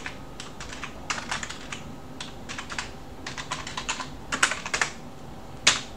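Computer keyboard typing: uneven runs of quick key clicks, with a few louder keystrokes toward the end.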